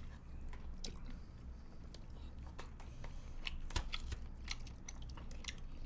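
Quiet eating sounds: chewing, with scattered light clicks of chopsticks and a spoon against bowls and dishes, over a low steady hum.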